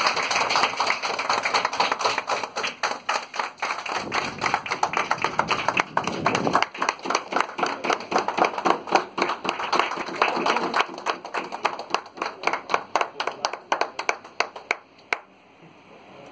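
Audience applauding, a dense clatter of many hands clapping that dies away and stops about fifteen seconds in.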